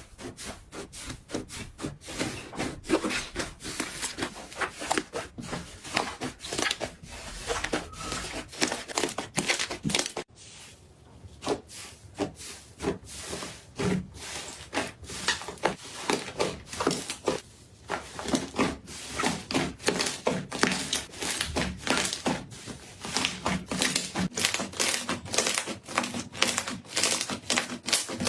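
Slime being squeezed, stretched and kneaded by hand, giving a run of quick sticky clicks and crackling pops several times a second, with a short break about ten seconds in.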